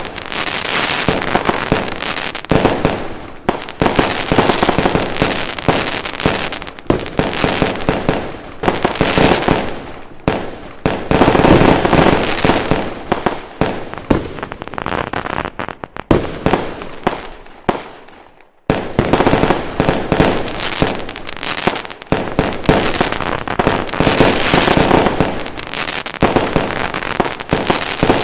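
Fireworks going off in a dense, continuous barrage of rapid bangs and crackling. It breaks off briefly about two-thirds of the way through, then starts again.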